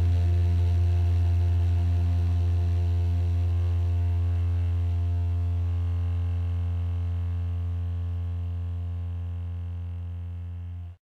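The final low, distorted note of a sludge metal song ringing out from the amplifiers, held steady and slowly dying away, then cut off abruptly at the very end as the track ends.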